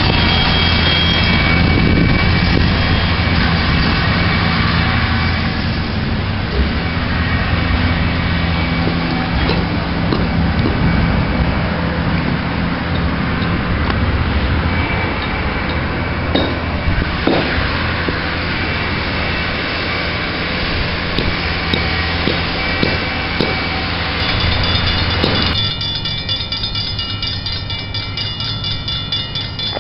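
An engine running steadily with a low, even drone, with a few short knocks around the middle. About 25 seconds in the sound changes abruptly to a quieter low rumble with thin, steady high tones.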